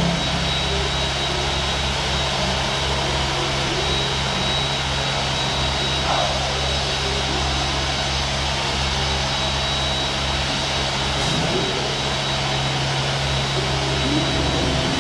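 Comandulli Athena CNC edge polishing machine for natural stone running, its head working the stone edge with cooling water: a steady mechanical noise with a low hum and a constant high whine.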